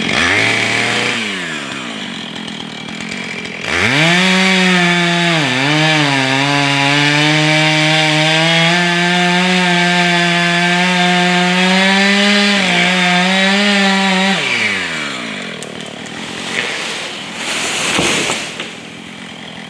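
Husqvarna 445 two-stroke chainsaw, freshly fitted with a new bar, dropping to idle, then held at full throttle for about ten seconds while cutting wood. The revs dip twice under load before it falls back to idle. Two short noisy bursts follow near the end.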